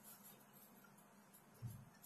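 Near silence: faint room tone, with one soft low thump near the end.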